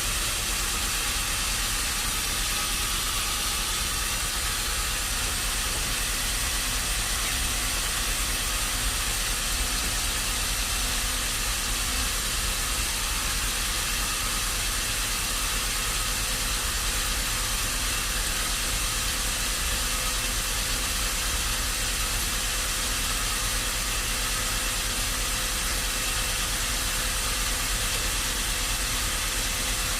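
Steady machine noise: an even hiss with a low hum and a faint steady tone, without any change in level.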